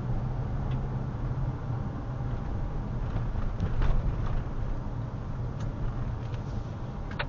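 Car driving along a city street at about 45 km/h, heard from inside the cabin: a steady low rumble of engine and tyre noise. A brief low thump, like a wheel going over a bump, comes about four seconds in.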